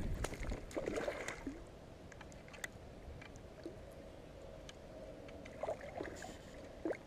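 Light scattered clicks and knocks from a fisherman handling gear in a plastic kayak, with a brief splash or rustle about a second in, over a quiet background as the wind dies down at the start.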